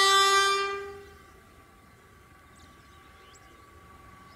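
Air horn of a WAG-12 electric freight locomotive sounding a long blast that fades out about a second in. A faint steady tone and low rumble of the approaching train remain.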